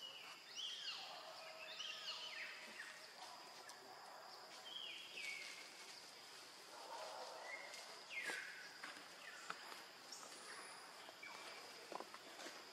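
Forest ambience: faint bird calls gliding downward in pitch, repeated every second or two, over a steady high insect hum, with a few light clicks near the end.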